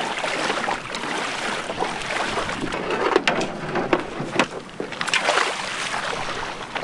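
Steady rushing noise of wind and water, broken by a few sharp knocks.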